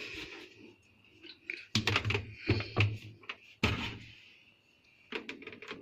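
A few knocks and clunks of a top-loading washing machine being handled, its plastic body and lid knocking. They come close together from about two to four seconds in.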